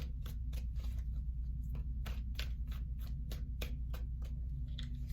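Tarot deck being shuffled by hand: a quick, uneven run of short card flicks and slaps, several a second, over a low steady hum.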